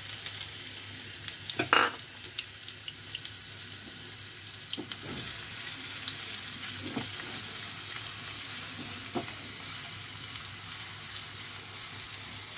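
Chopped onion sizzling steadily in hot vegetable oil in a kadai as it is stirred with a spatula. A loud knock comes about two seconds in, and a few lighter knocks follow as it is stirred.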